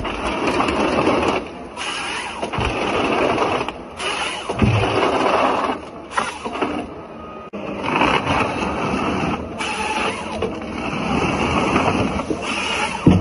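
Eco Log 580F forestry harvester working its EC561 harvester head: the chain saw cutting through logs and the feed rollers driving stems through the delimbing knives, over the machine's engine under load. It comes in loud spells of a few seconds with short breaks between.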